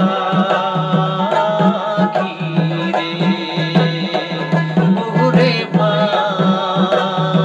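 Goalpariya folk song: a man sings a wavering melody over a small hand drum beating a steady rhythm of low strokes.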